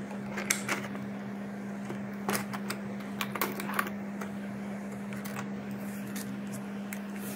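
Sharp plastic clicks and clatter as a clear plastic tray of small toy cars is pulled out of a plastic toy truck trailer, mostly between about half a second and four seconds in, over a steady low hum.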